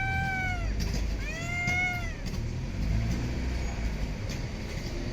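A cat meowing twice, each meow rising and then falling in pitch, over a steady low rumble.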